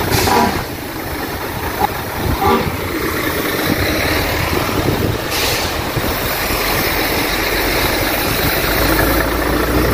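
Heavy diesel truck engines idling with a steady rumble, with a short hiss about five seconds in; the low rumble gets heavier near the end.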